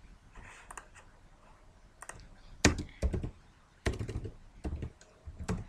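Typing on a computer keyboard: a scattering of single keystrokes at an uneven pace with short pauses between them, the sharpest about halfway through.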